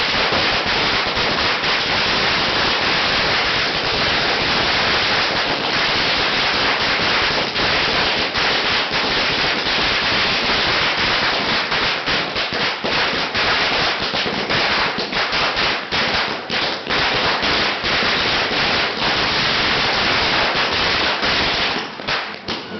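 Firecrackers going off in a dense, rapid, unbroken crackle of sharp pops, thinning out near the end.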